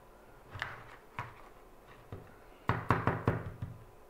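Wooden coloured pencils clacking and knocking against each other and the work surface as one is picked out: a few single knocks, then a quick run of clacks about two-thirds of the way in.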